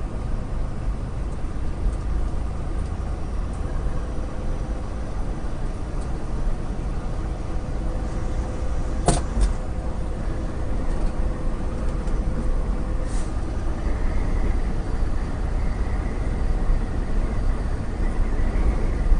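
Semi-truck driving along the highway: a steady low rumble of engine and road noise, with one sharp click about halfway through.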